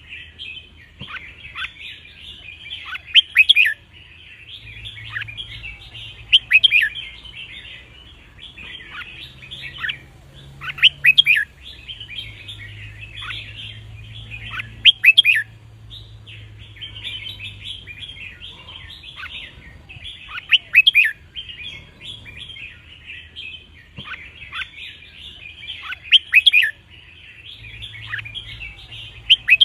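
Red-whiskered bulbuls singing: loud, sharp song phrases repeat about every four to five seconds over continuous bird chattering.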